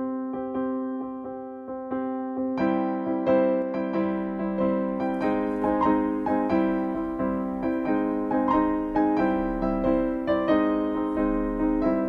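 Background music on keyboard: gentle piano-like notes struck in a steady pulse, with more notes and a fuller sound coming in about two and a half seconds in.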